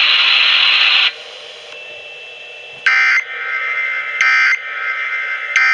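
Three short, identical Emergency Alert System end-of-message data bursts (SAME 'NNNN' tones) over a radio broadcast, about a second and a quarter apart. They mark the end of the relayed severe thunderstorm warning. Before them, a loud hiss cuts off about a second in.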